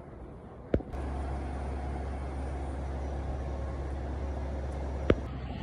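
Steady low rumble of street traffic, set off by a sharp click about a second in and another near the end.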